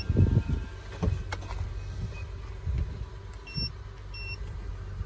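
The Toyota Solara's electronic warning chime beeps twice, short and high, about three and a half and four seconds in, over low rumbling thumps of handling and wind on the microphone.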